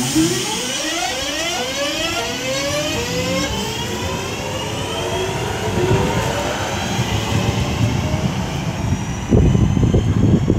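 Class 323 electric multiple unit pulling away, its traction inverters and motors giving a whine of several tones that climb steadily in pitch as it accelerates over about eight seconds. Near the end a louder low rumble starts suddenly.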